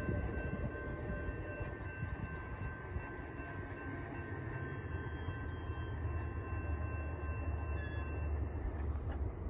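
Approaching diesel-hauled freight train, a loaded work train still out of sight: a low rumble that grows stronger in the second half, with faint steady high tones that die away about eight seconds in.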